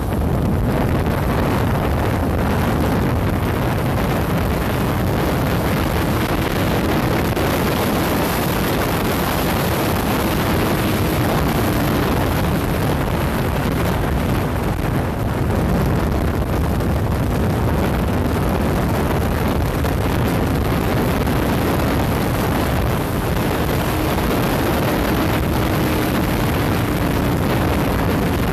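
Wind rushing over the microphone on a motorcycle at highway speed, with the engine's steady hum underneath, its pitch drifting slightly.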